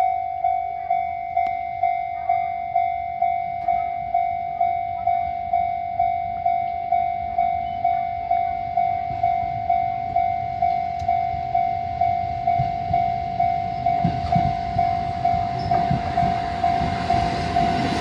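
Japanese level-crossing electronic warning bell ringing at one pitch, about two strikes a second. Over the last few seconds a Kotoden four-car train of 1200 and 1100 series cars approaches, and its rumble rises until it reaches the crossing at the end.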